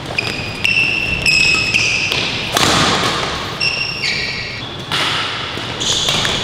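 Badminton doubles rally: sharp racket hits on the shuttlecock mixed with players' shoes squeaking briefly and repeatedly on the court floor.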